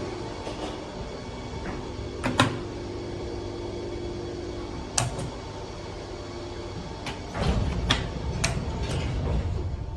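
1973 Otis traction lift in operation: a steady hum with sharp clicks and clunks of its doors and controls, a cluster of clunks with a low rumble about three-quarters of the way through.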